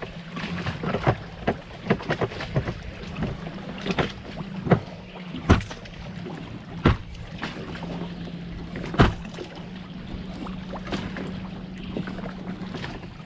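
Hard knocks and clicks of gear being snapped into the rear rack of a Sea-Doo FishPro, irregular and sharp, over a steady low hum that stops near the end.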